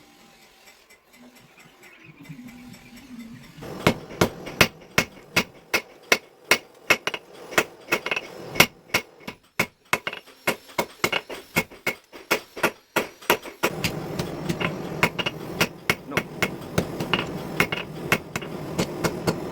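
Blacksmith's hammer striking steel on an anvil in a steady rhythm of about two to three blows a second, starting about four seconds in. A steady low hum joins the blows about two-thirds of the way through.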